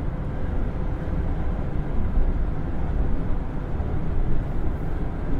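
Inside the cabin of a 1970 Buick Estate Wagon cruising at a steady, slow highway speed: the 455 V8 running through its single exhaust, mixed with road noise in an even low drone.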